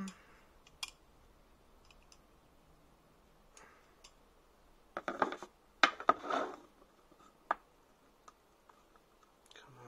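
Nested metal square tubes of a telescoping torque shaft being handled on a desk: scattered light clicks, then a cluster of knocks and scraping between about five and six and a half seconds in, and one more click shortly after.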